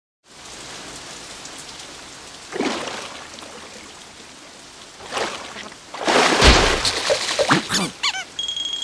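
Steady rain falling, with louder splashing bursts about two and a half and five seconds in, a loud thump around six and a half seconds, then a cluster of short sliding squeaks and a brief whistle-like tone near the end.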